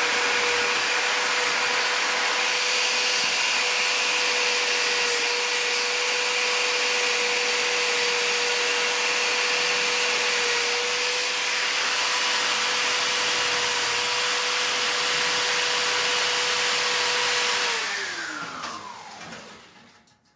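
Electric power tool with a wire brush running steadily at high speed, brushing primer off welded steel on a bicycle frame. Near the end it is switched off and its whine falls in pitch as it spins down to a stop.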